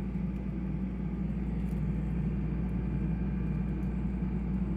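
Refrigerator compressor running with a steady low hum.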